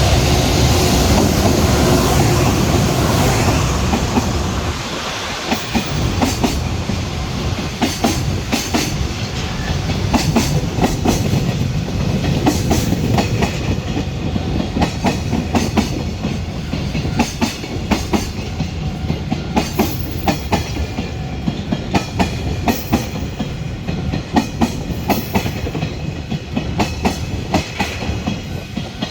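Freight container train rolling past close by, its wagon wheels clicking over the rail joints in a steady clickety-clack. The rolling rush is loudest for the first few seconds and eases about five seconds in, after which the sharp wheel clicks stand out.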